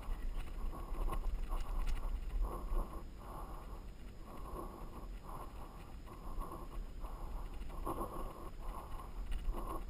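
Mountain bike riding down a sandy dirt trail, heard through an action camera on the bike or rider: a steady muffled rumble with a rhythmic rustling about one and a half times a second.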